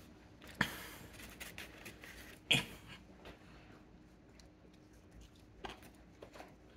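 Someone biting into and chewing pizza crust, with a few sharp crunches, the loudest about two and a half seconds in.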